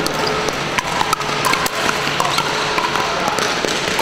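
Pickleball paddles striking hard plastic balls, a scatter of sharp pops at irregular intervals from this match and neighbouring courts, over the steady background noise of a busy sports hall.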